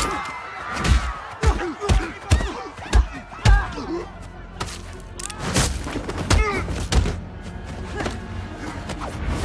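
Hand-to-hand fight sound effects from an action film: a quick run of about six punch and body-blow thumps in the first three and a half seconds, then a few lighter impacts over the dramatic film score.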